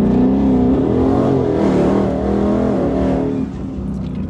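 Twin-turbocharged 5.0 L Coyote V8 of a 2019 Ford Mustang GT, with a Corsa Xtreme cat-back exhaust, heard from inside the cabin while accelerating on the street. The engine note holds and wavers in pitch, then eases off a little over three seconds in.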